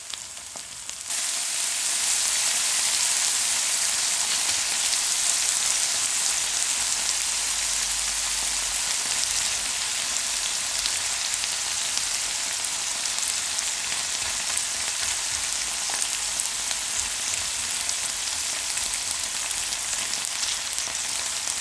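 Gochujang-sauced pork belly sizzling steadily in a hot metal pan, getting louder about a second in, with scattered small pops.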